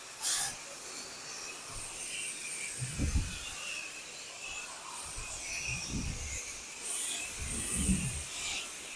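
Pressure washer spraying a porch surface, a steady high hiss, with a few dull low thumps about a third of the way in, two-thirds of the way in and near the end.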